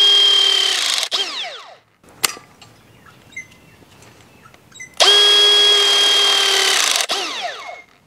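Battery-powered crimping tool with crimp dies, its electric motor running in a steady high whine as it presses a crimp onto 2.5 mm high-tensile wire. It stops just under a second in and winds down in falling pitch, then runs again from about five seconds for nearly two seconds and winds down: two press cycles on the one crimp.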